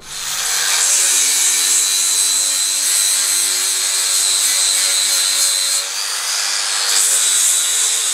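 Power sander with a large soft backing pad grinding down tin body solder on the steel door of a VW T1 bus. The motor runs steadily with a high whine, eases off briefly about six seconds in, then picks up again.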